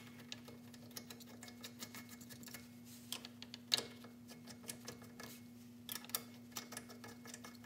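Light, irregular metallic clicks and ticks as lug nuts are spun on by hand onto the wheel studs of an aluminum wheel, with one sharper click nearly four seconds in. A faint steady hum runs underneath.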